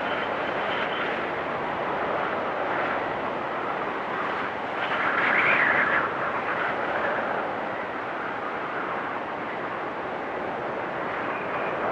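Storm wind gusting and whistling, a steady rush that swells into a louder, higher gust about five seconds in and then eases back.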